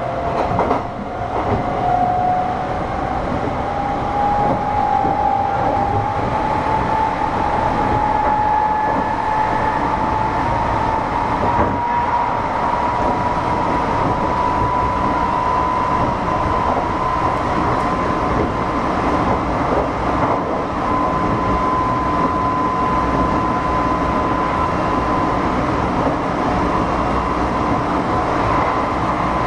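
Kintetsu 6620-series electric commuter train running, heard from aboard: steady rail and running rumble with an electric whine that rises in pitch over the first half as the train gathers speed, then holds at one pitch while cruising.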